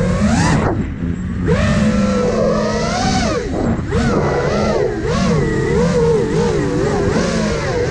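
iFlight Nazgul Evoque F5 quadcopter's brushless motors and propellers whining, the pitch rising and falling with the throttle. It drops sharply about a second in and again near four seconds, climbs back each time, then wavers up and down quickly toward the end, over a low rumble of wind on the onboard microphone.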